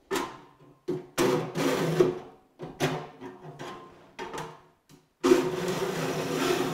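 Mill file rasping along the tops of a rip handsaw's teeth in repeated strokes, jointing the tooth line flat, with a ringing tone from the steel saw plate under the file. About five short strokes are followed by a longer, unbroken stroke starting about five seconds in.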